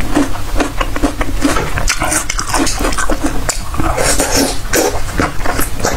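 Close-miked biting and chewing of a green tomato: a quick run of crisp, wet crunches.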